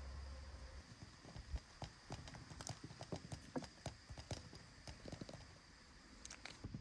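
Blueberries tipped from a plastic tub dropping into a titanium mug: an irregular run of small knocks and taps that goes on for several seconds.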